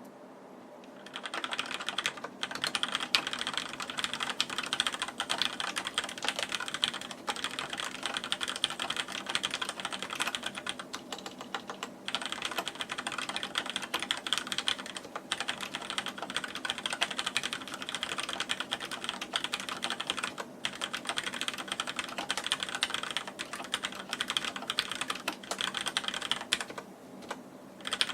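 Deck Francium mechanical keyboard with Cherry MX Black linear switches being typed on quickly, a dense run of keystroke clacks starting about a second in, with a short pause near the end before typing resumes.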